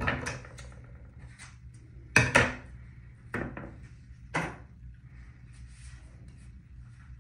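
A few sharp knocks and clatters of small objects being handled, the loudest a quick pair just after two seconds in, over a steady low hum.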